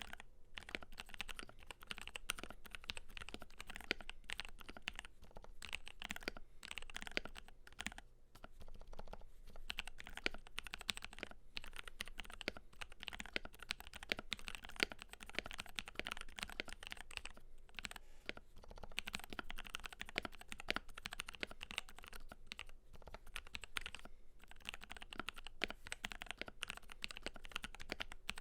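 Continuous fast typing on a Keydous NJ80 mechanical keyboard with a brass plate, lubed Durock Cerulean switches and Cherry profile PBT keycaps: a dense run of key clacks with a few short pauses between bursts.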